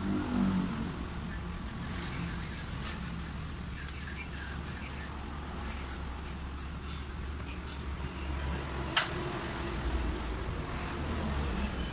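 Light metallic clicks and taps of small parts being fitted by hand into a diesel injection pump, with one sharp metal click about nine seconds in, over a steady low hum.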